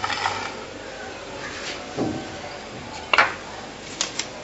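Icing sugar tipped from a glass into a mixing bowl: a soft pour at first, then a dull knock about two seconds in, a sharper clink about a second later, and two light ticks near the end as the glass knocks against the bowl.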